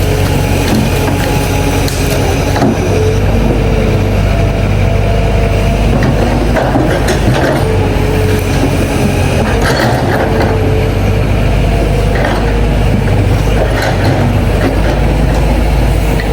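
Excavator working: its diesel engine runs steadily under load, a hydraulic whine shifts in pitch as the arm moves, and there are scattered knocks and scrapes.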